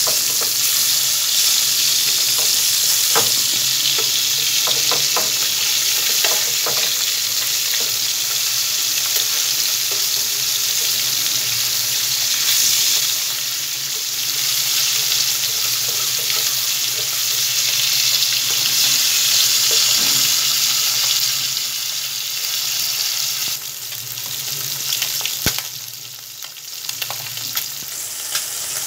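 Fish pieces shallow-frying in hot oil in a nonstick wok, giving a steady loud sizzle, with a metal spatula clicking and scraping against the pan now and then. The sizzle eases about three-quarters of the way through.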